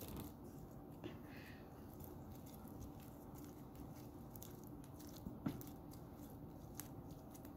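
Faint squishing and sticky clicks of homemade glue slime, activated with baking soda and contact solution, being kneaded and played with by hand. The clearest click comes about five seconds in, over a faint steady hum.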